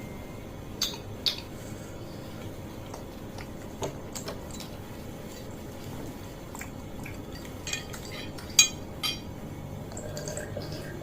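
Cutlery clinking and scraping against a plate while fried noodles are eaten: a scatter of sharp clicks, the loudest about two-thirds of the way through.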